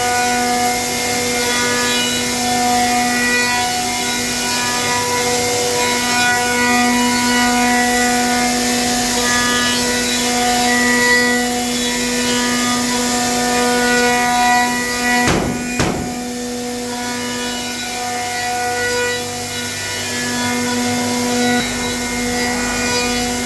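CNC router spindles running steadily while milling hardwood gun stocks: an even hum with a whine above it and cutting hiss. There is a brief rattle about two-thirds of the way through.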